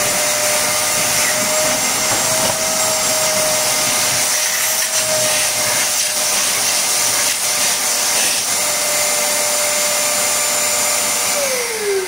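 YILI YLW6263A 12-litre wet/dry vacuum with a carbon-brush motor, running with a steady whine while its hose sucks water from a plastic tub. Near the end the motor winds down and its pitch falls.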